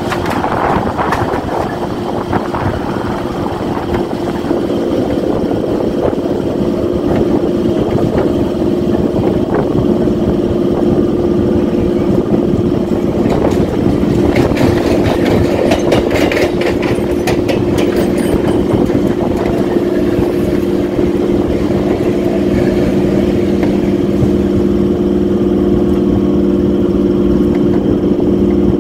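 Mumbai suburban electric local train running, a steady hum of several tones over a rumble. A stretch of rapid clicking and clatter comes in the middle.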